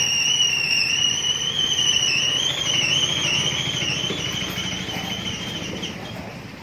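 A motor vehicle engine running close by, with a low pulsing rumble under a loud, high, wavering whine. It starts suddenly and fades near the end.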